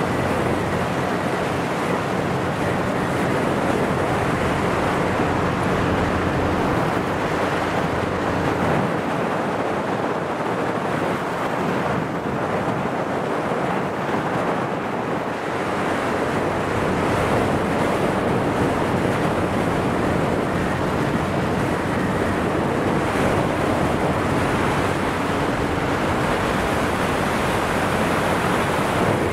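Wind buffeting the microphone and water rushing past a moving motorboat, with a low, steady engine hum underneath.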